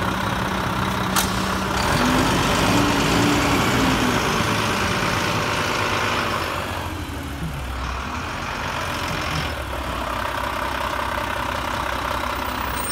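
Automated side-loader garbage truck's diesel engine running at idle, with a sharp click about a second in, then revving up and easing off as the truck moves off.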